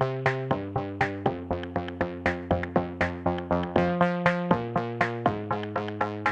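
Electronic background music: quick, evenly spaced synthesizer notes over a steady beat.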